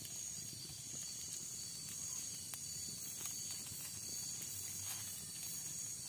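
A steady chorus of night insects, with a small wood fire crackling in scattered faint snaps.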